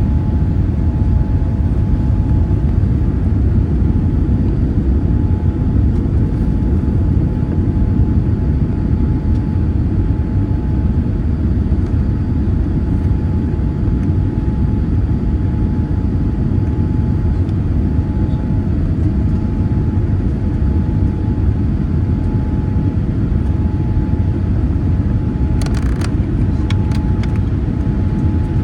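Steady rumble of a Boeing 787-8's engines and airflow heard inside the cabin, with a faint steady tone above it. A few sharp clicks near the end.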